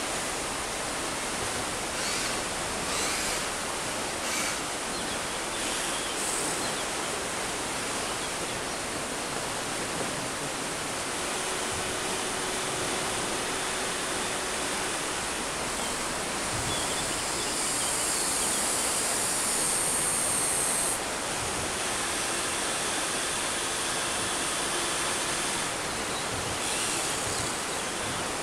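Steady rush of river water, with a higher hiss between about two-thirds and three-quarters of the way through, and faint whirring from an RC excavator's electric motors as its arm moves.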